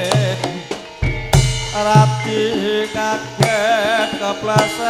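Javanese gamelan music (karawitan) playing for a tayub dance. Kendang drum strokes mark the rhythm, with a deep stroke about a second in, while a singer holds wavering, vibrato-laden notes above the ensemble.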